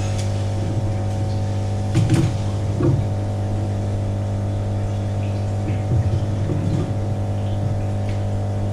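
Steady low machine hum made of several held tones, with a few soft knocks and bumps about two, three and six to seven seconds in.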